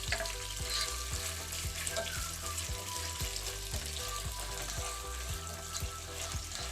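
Crushed ginger, garlic and green chillies frying in hot oil with curry leaves, a steady sizzle.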